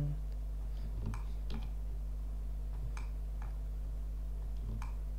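A handful of short, sharp computer-mouse clicks, spaced irregularly, over a steady low electrical hum.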